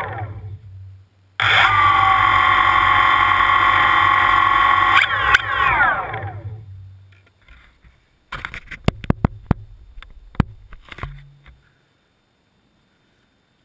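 DJI Phantom quadcopter's propeller motors spinning on the ground: a falling whine as they wind down, a short gap, then a sudden start into a steady whine for about four seconds, which falls away again as they spin down. Later, a run of sharp clicks and knocks.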